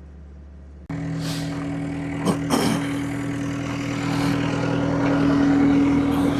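Skid steer engine running loud and steady, cutting in abruptly about a second in after a low hum. A couple of short knocks come about a second later, and the engine swells slightly louder in the second half.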